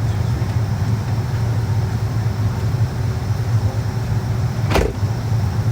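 Steady low hum of a Boeing 757's passenger cabin before departure, with one sharp knock near the end.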